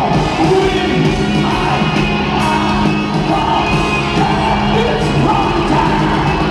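Live hard rock band playing loudly, with a sung and shouted lead vocal over amplified band.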